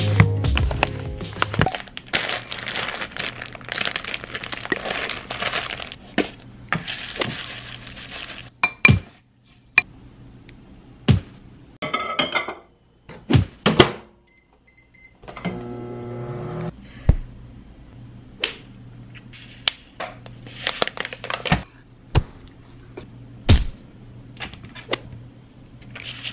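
Kitchen food-prep sounds: plastic snack packaging crinkling, a few short electronic beeps from a microwave keypad as buttons are pressed, then the microwave oven running with a steady hum, with scattered taps and clinks of a ceramic bowl and utensils. Background music fades out in the first two seconds.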